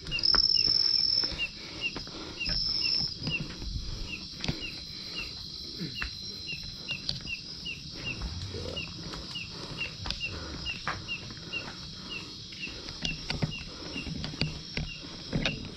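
Night insects: a cricket trilling in loud high bursts over the first three seconds, then fading to a faint steady trill, while another insect gives a short chirp over and over, about twice a second. Scattered footsteps and scuffs of someone walking over concrete and tile run underneath.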